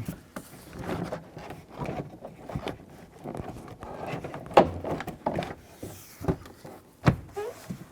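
Plastic door trim panel being handled and pushed into place on a truck door: scraping and rustling with several sharp knocks, the loudest about halfway through.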